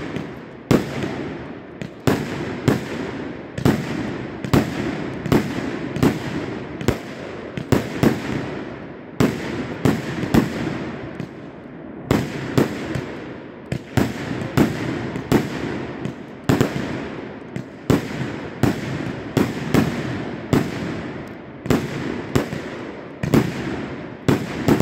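A Vicious Dog 36-shot consumer fireworks cake firing in rapid succession: sharp bangs about every half second over a rumbling haze of echo, with a brief lull near the middle.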